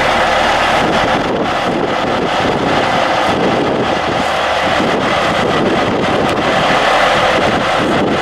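Heavy vehicle engines running as airport crash tenders and military trucks drive past in a column, a steady loud rumble mixed with wind on the microphone.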